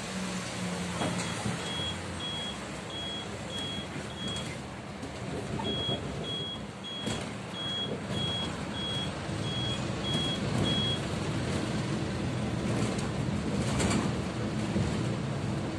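City bus running, heard inside the cabin: a steady low engine hum with cabin rattle. Over it, a high electronic warning beeper sounds in two runs of short regular beeps, about three every two seconds, pausing once about four seconds in and stopping about eleven seconds in.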